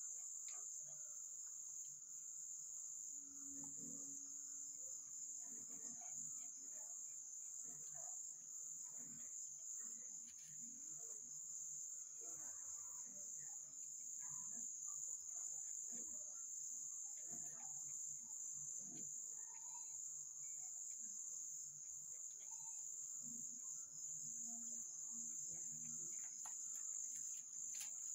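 A steady, high-pitched chorus of crickets, with faint scattered rustles and knocks beneath it.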